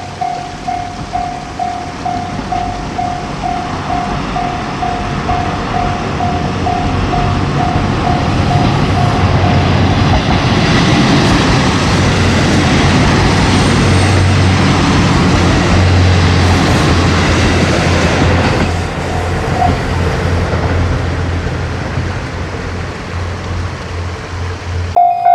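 Japanese level-crossing warning bell ringing its 'kan-kan' at about two strokes a second while a train approaches and passes, the train's noise and low hum drowning out the bell and then fading away. Near the end the bell starts again, louder.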